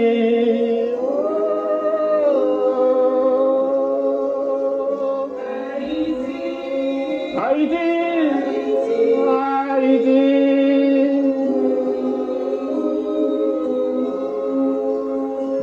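Women's choir singing slow, long-held notes in harmony.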